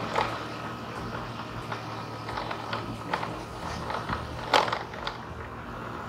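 A moving vehicle's steady low running drone, with scattered clicks and rattling knocks as it goes over the road; the loudest knock comes about four and a half seconds in.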